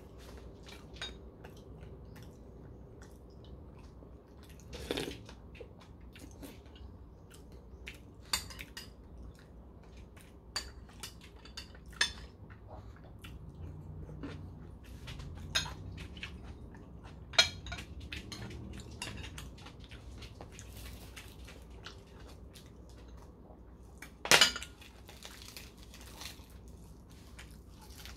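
Close-up eating sounds: chewing and mouth noises with scattered sharp clinks of a metal spoon against ceramic dishes, the loudest clink about three-quarters of the way through.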